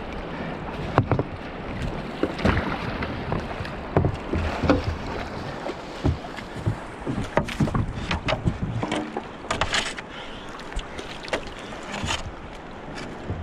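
Kayak paddle strokes in fast, shallow river current: the blades dip and pull with irregular splashes and knocks over a steady rush of water.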